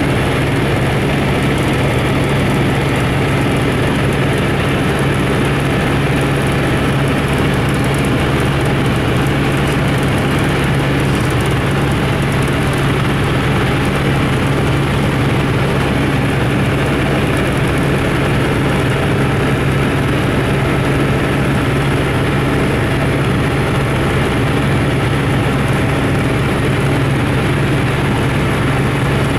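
Steady drone of a small aircraft's engine and propeller heard inside the cabin in flight: a constant low hum under loud, even rushing noise.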